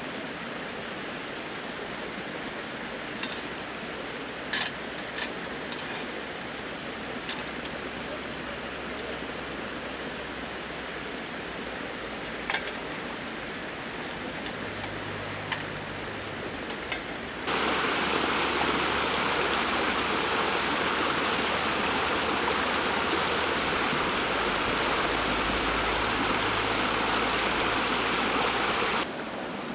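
Steady hiss with a few short, sharp clicks as cooking utensils are handled at a small camping grill. A little past halfway it cuts suddenly to the louder, even rushing of a rocky mountain stream tumbling over stones, which stops just as suddenly shortly before the end.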